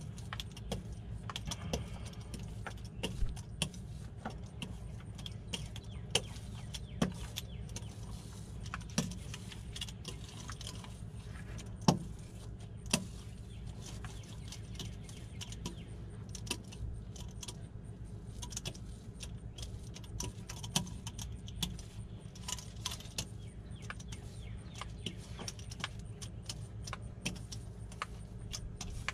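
Metal fiberglass bubble-buster roller being rolled back and forth over a resin-wetted fiberglass mat patch, giving irregular light clicks and rattles, with a sharper tap about twelve seconds in. A steady low hum runs underneath.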